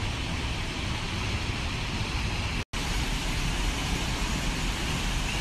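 Steady rushing of the Rainbow Falls waterfall plunging into its pool. The sound cuts out for an instant about halfway through.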